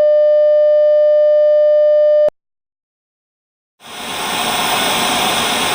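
A steady, loud electronic tone, mid-pitched with overtones, holds for over two seconds and cuts off abruptly. After about a second and a half of silence, a broad rushing noise swells in and holds.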